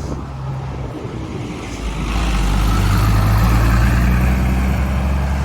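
A city bus driving past, its engine and tyre noise swelling about two seconds in and staying loud as it goes by.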